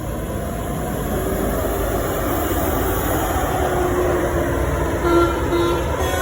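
Bus engine and road rumble, steady and loud, with a multi-tone telolet bus horn coming in: faint held notes from about a second in, then short on-off notes at two pitches near the end.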